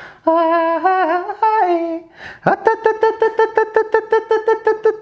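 A man's voice singing a short wordless melody, then holding one steady note broken into rapid even pulses, about seven a second, from about halfway on.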